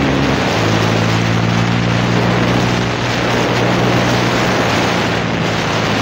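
TVS Raider 125's single-cylinder engine running through an aftermarket exhaust as the bike is ridden, a steady exhaust note whose pitch shifts about half a second in. Wind noise on the microphone throughout.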